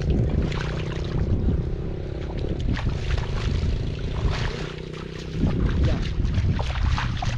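Wind buffeting the microphone, with irregular splashing and sloshing of shallow muddy water as hands grope through it, over a steady low hum.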